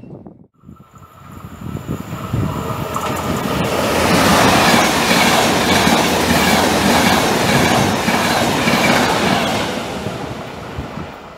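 ÖBB EuroCity passenger train, hauled by an E.190 electric locomotive, running through the station at speed. Its rolling noise builds up as it approaches, stays loud with a rhythmic clatter of wheels for several seconds as the coaches go by, then fades near the end.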